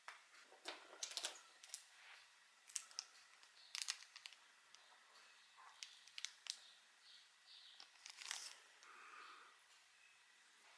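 Faint, scattered light clicks and brief crinkling rustles of figure packaging, plastic and paper being handled.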